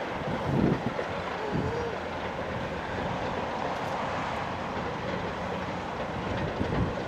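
Heritage diesel locomotive running on the line, a steady mechanical rumble, with gusts of wind buffeting the microphone in the first two seconds.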